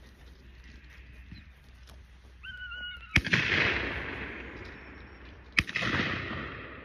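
Two shotgun shots about two and a half seconds apart, each echoing and fading over a second or so. A brief high whine comes just before the first shot.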